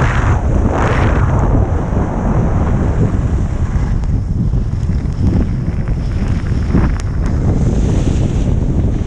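Wind buffeting the microphone of a skier running down a groomed piste, a steady low rumble. The hiss of skis on packed snow swells in a few turns, about a second in and twice later on.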